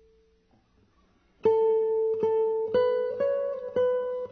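Background instrumental music. After about a second and a half of near silence, a plucked string instrument starts a slow melody of single ringing notes, about two a second.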